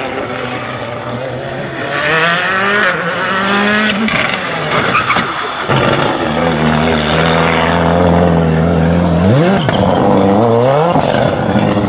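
Škoda Fabia WRC rally car's turbocharged four-cylinder engine revving hard as it drives past. About halfway it is held at steady high revs while the tyres spin and smoke, then it accelerates away with two rising sweeps up through the gears.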